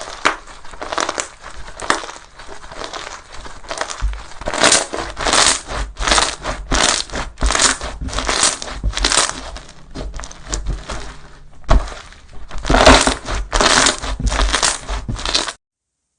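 Slime being squeezed and pressed by hand, a run of squishes at about two a second that stops suddenly shortly before the end.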